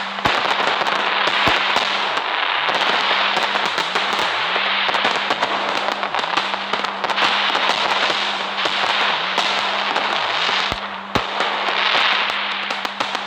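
Fireworks crackling continuously: a dense stream of sharp snaps and pops over a steady hiss.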